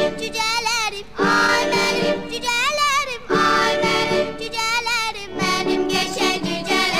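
Background music: a cheerful children's song with a sung melody over instrumental backing.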